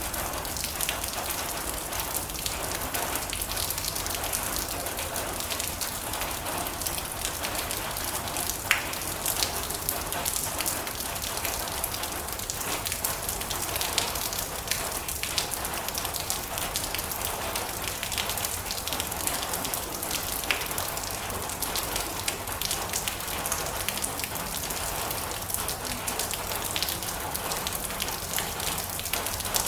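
Steady rain drumming on a metal roof, a dense patter of drops with sharper individual drop strikes ticking through it.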